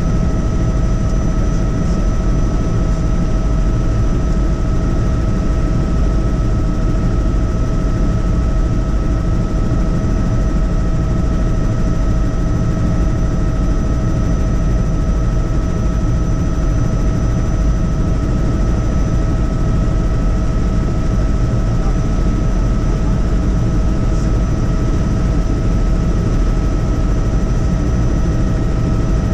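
Helicopter in flight: a loud, steady rotor and engine rumble with a constant whine over it.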